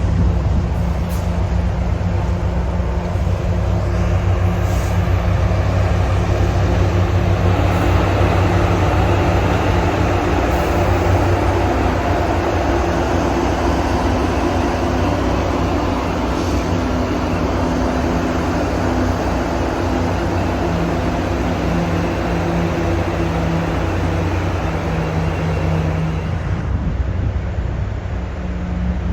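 A train running at a station platform: a steady low engine hum with several held tones, even throughout.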